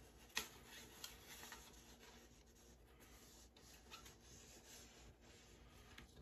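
Faint rubbing of a small hand-held wax-painting iron sliding over melted wax on paper card, with a few soft ticks.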